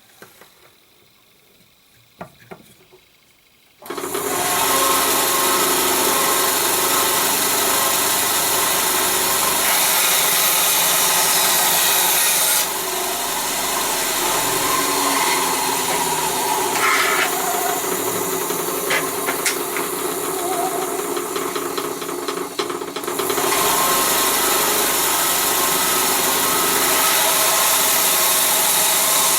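Electric power tool working wood: after a few faint clicks, the motor starts about four seconds in and runs steadily and loudly, dipping somewhat in level through the middle with a few ticks before rising again.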